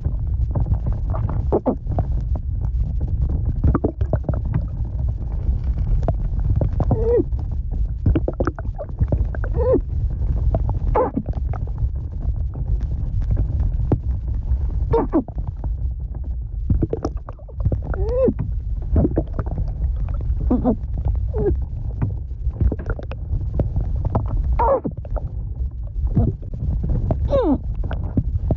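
Underwater breath-hold sound effect: a steady low underwater rumble with bubbles escaping every second or two as short gurgling pops and rising chirps, mixed with muffled glubs and mmph sounds from the person holding their breath.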